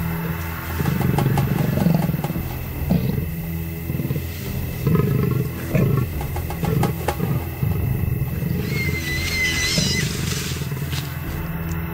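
Leopard and hyena growling and snarling as they fight over a carcass, in repeated rumbling bouts. A short high-pitched whine rises above the growls near the end.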